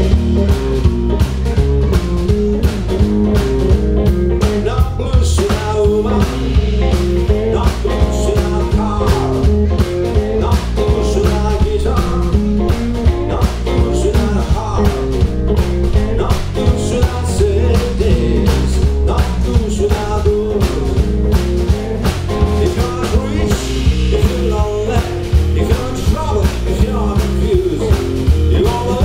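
Live blues-rock band playing with electric guitar, bass and drum kit over a steady, driving beat.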